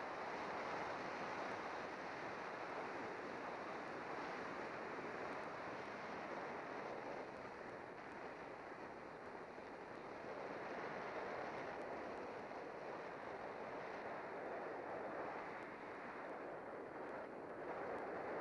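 Wind rushing over the microphone of a camera riding on a bicycle on a fast road descent: a steady rushing hiss that swells and eases a little with speed.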